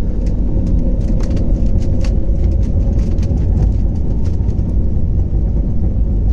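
Airbus A321neo airliner running loud, with a heavy, steady low rumble and a steady hum. Frequent short rattles and knocks run through it.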